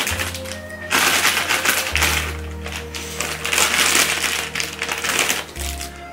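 Crinkling and rustling of a plastic snack wrapper being handled and opened, over background music with a steady low bass line.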